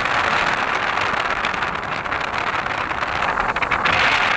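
Window air conditioner running: a loud, steady rushing of fan airflow, with a few light clicks about three seconds in.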